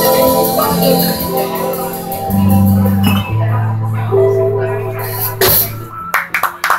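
Live electric keyboard playing held chords over a sustained bass line, the closing notes of the song. The music stops about six seconds in, and a few claps begin.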